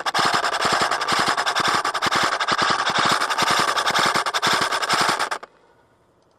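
Airsoft electric gun (AEG) firing a long full-auto burst, a fast continuous clatter of shots over the whine of the gearbox, that stops abruptly about five seconds in.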